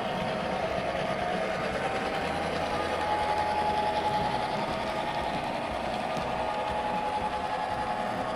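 HO-scale Proto 2000 GP7 Phase II model diesel locomotive running on the layout track: a steady small-motor and wheel running sound with a faint steady whine.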